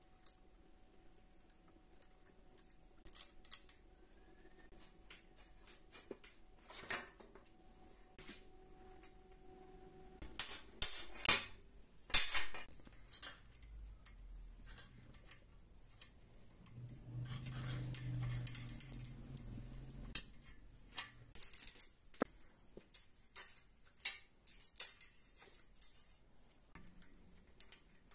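Bicycle parts being taken apart with small metal hand tools, a hex socket driver and a chain breaker: a string of sharp clicks and light metallic clinks, the loudest a few knocks a little under halfway through. About two-thirds of the way through comes a rougher noisy stretch lasting a few seconds.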